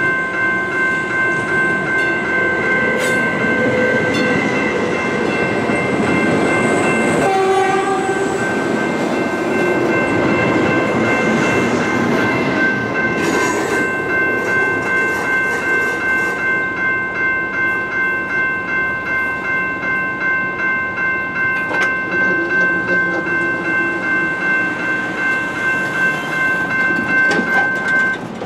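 Railroad grade-crossing bell ringing in a steady repeating pattern while a passenger train passes, with a short train horn blast about a quarter of the way in. The bell stops just before the end as the crossing gates rise.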